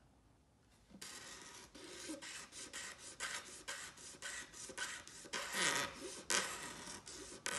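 Razor blade scraping celluloid binding on the edge of a 1971 Gretsch guitar body, in short repeated strokes of about three a second that start about a second in and grow louder near the end. The blade is taking the binding down to the thickness of the body edge.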